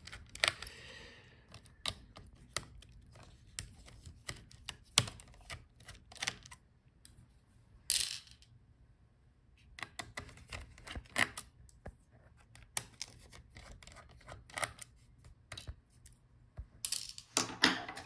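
Irregular small clicks and ticks of a precision screwdriver turning out the screws that hold a laptop's heatsink and cooling fan, with the light clatter of small metal and plastic parts being handled.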